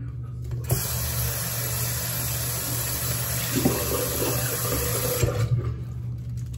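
Bathroom tap running hard for about four and a half seconds, turned on just under a second in and shut off abruptly, as a washcloth is wetted under it.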